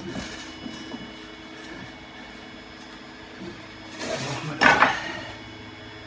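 Extruded polystyrene (Styrodur) foam boards being handled and fitted together: a few light knocks, then about four and a half seconds in a loud, brief scraping rustle of foam rubbing on foam as a piece is pushed into place.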